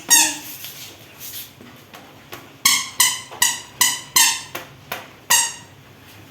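Baby's high-pitched squeals of delight: one short squeal at the start, then a run of six short squeals in quick succession, each falling in pitch.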